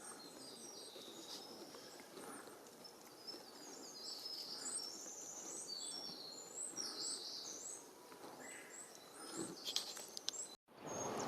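Several small songbirds singing: a chorus of overlapping high, thin chirps and short trills. A few faint clicks come near the end before the sound cuts out abruptly.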